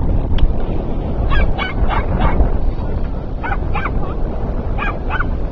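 A small dog barking in short, high yips: a quick run of four about a second in, then two pairs, over a steady low rumble.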